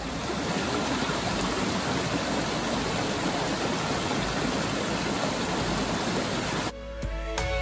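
Rain-swollen stream rushing over rocks, a steady even rush of water. It cuts off abruptly near the end and music begins, with a tone that slides up.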